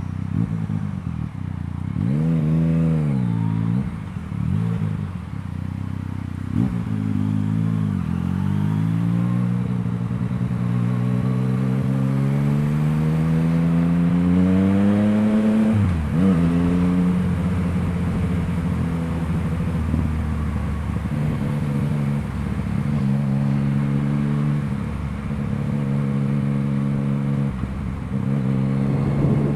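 Yamaha MT-09's three-cylinder engine through an Akrapovič exhaust, under way: a quick rise and fall in revs a few seconds in, then a long pull climbing in pitch for about eight seconds. The revs drop sharply about halfway through, and the engine then runs steadily with a few brief dips.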